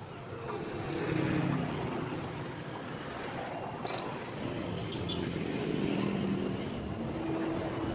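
Motor vehicle engine noise, steady with shifting pitch, and a short sharp click about four seconds in.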